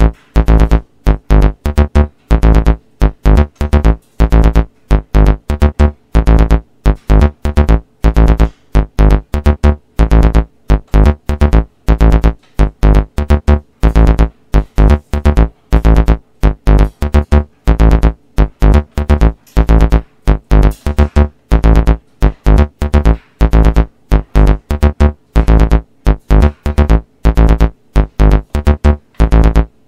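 Background music: an electronic keyboard track with a heavy bass, played in short, choppy notes several times a second.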